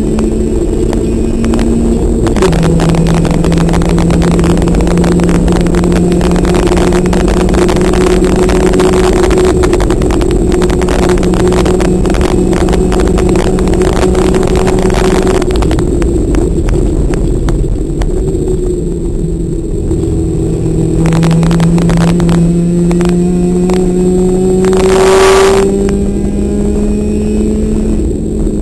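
Race car engine heard from inside the cabin, pulling hard on track. About two seconds in the engine note drops in pitch as it shifts up, then holds and slowly climbs. Near the end it steps back up in pitch with a downshift. Constant road and wind noise with frequent small knocks runs over it.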